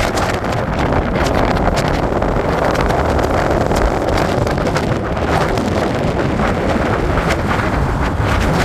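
Steady loud rush of fast-flowing river water in high flood, mixed with wind buffeting the microphone.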